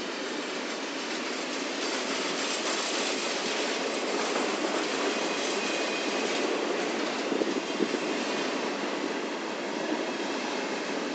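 Double-stack intermodal freight cars rolling past at close range: a steady rumble of steel wheels on rail, with a few louder knocks a little past the middle.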